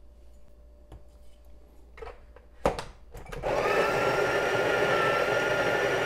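A sharp click, then about three and a half seconds in the built-in burr grinder of a Breville espresso machine starts up and runs steadily, grinding coffee beans into the portafilter.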